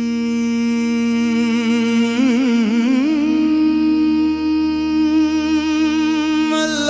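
A singer holds a long wordless note in a qawwali. About two seconds in the voice wavers through a quick ornamental turn, then settles on a slightly higher held note over a faint low drone.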